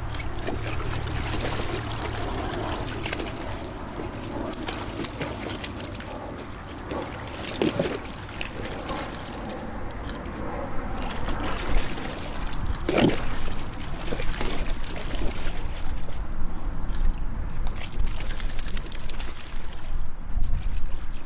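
Water splashing and sloshing in a plastic kiddie pool as two soft-coated wheaten terriers wade and play in it. There are two short, louder sounds, one about eight seconds in and one about thirteen seconds in.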